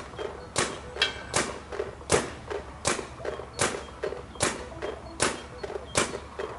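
Paintball marker firing single shots at a steady, unhurried pace, roughly one every three-quarters of a second, each shot short and sharp.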